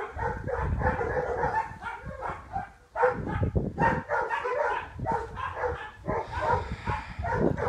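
A dog barking and yelping repeatedly, over a steady low rumble of strong, gusty wind on the microphone.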